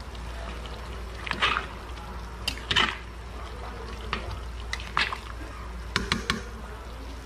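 A pot of chicken soup with malunggay leaves being stirred: a few short sloshes of liquid and clinks of a utensil against the pot, over a steady low hum.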